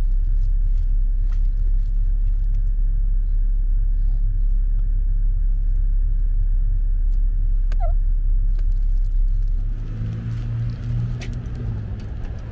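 Steady low rumble of a car driving, heard from inside the cabin. About ten seconds in the rumble drops and gives way to a quieter hum.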